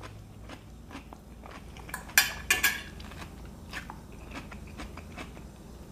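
Someone chewing a crunchy mouthful of salad, with a fork clinking and scraping on the plate. The loudest part is a quick cluster of three sharp clinks a little over two seconds in.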